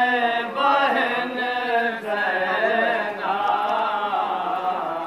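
A noha, a Shia mourning lament, chanted by male voices in a drawn-out melodic line.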